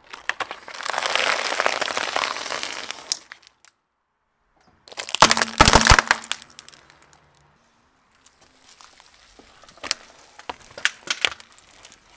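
A car tyre crushing objects under its weight: a cardboard box of puffed snacks crunches and crackles for about three seconds, then plastic toy eggs crack with loud snaps about five seconds in, followed by scattered crackles near the end.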